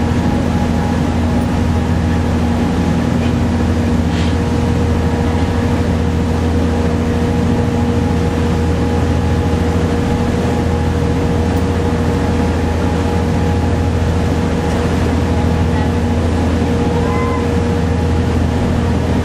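Car ferry's engines droning steadily under way, with a constant rush of wind and water over the deck.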